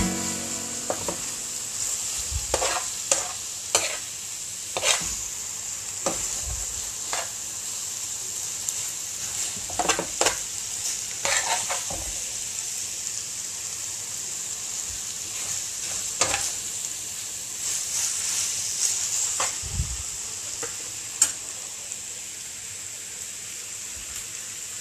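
Egg noodles with prawns and cabbage sizzling in a wok while a metal spatula stirs and tosses them: a steady high sizzle with irregular scrapes and clicks of the spatula against the pan.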